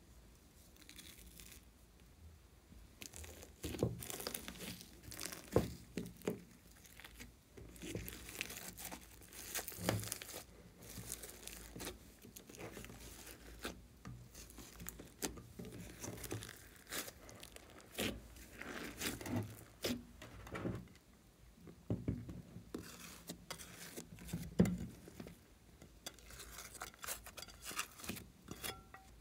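Hands kneading, folding and stretching thick slime in a glass dish: sticky crackles, pops and tearing sounds in irregular bursts, getting busier after the first few seconds.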